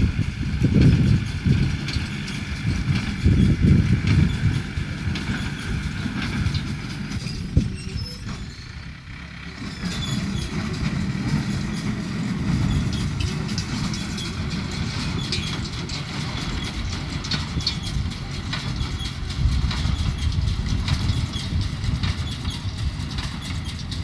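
Tractor engine running while towing a square straw baler, with the baler's rhythmic mechanical working sound. An uneven low rumble is strongest in the first few seconds and eases briefly about eight seconds in.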